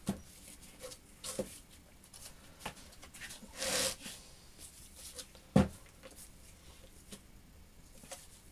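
Heavy homemade steel machine vise being handled and turned over on a workbench: a few sharp metal clunks, the loudest about five and a half seconds in, and a short scrape around four seconds in.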